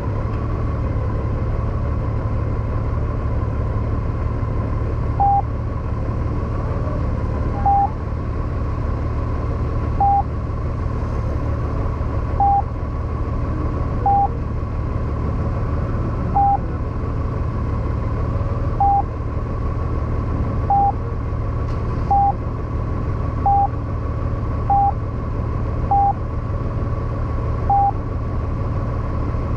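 Honda Gold Wing's flat-six engine idling steadily at a standstill. About a dozen short, identical electronic beeps come in from a few seconds in, spaced irregularly one to two seconds apart.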